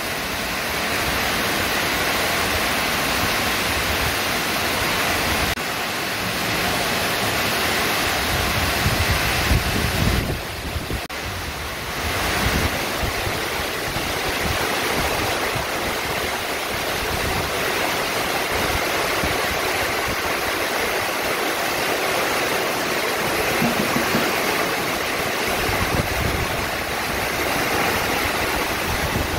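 Heavy rain falling in a steady hiss, driven by strong wind, with gusts buffeting the microphone in low rumbles about a third of the way in and again near the end.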